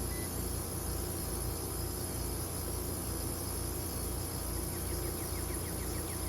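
Trane heat pump running in defrost mode with a steady mechanical hum and a low, even pulsing. A faint, fast ticking comes in near the end.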